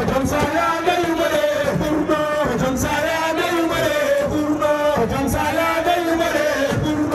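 Men chanting a Sufi religious song together, one voice leading through a microphone, the melody carried on long held notes.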